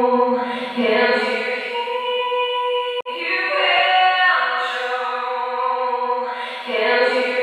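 Female vocal sample singing long held notes through the RO-Gold plate reverb plugin, the phrase washed in plate reverb. The loop cuts off abruptly about three seconds in and starts the phrase over.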